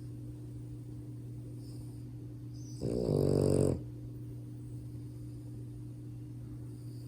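French bulldog puppy snoring in its sleep: one loud snore about three seconds in, lasting about a second, the kind of snoring typical of its flat-faced breed. A steady low hum runs underneath.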